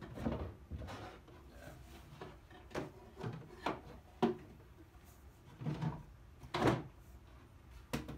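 Hinged molded-wood toilet seat and plastic urine-diverting insert on a wooden toilet box being lifted and set back down: a series of separate knocks and clunks, the loudest about two-thirds of the way through.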